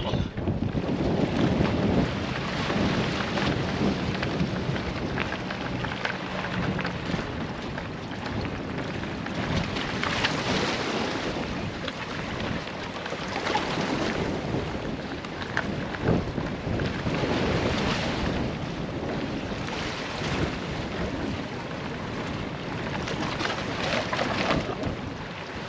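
Wind gusting on the microphone, swelling and falling every few seconds, over sea water washing against the rocks of a harbour quay. A steady low engine hum runs under it for the first several seconds.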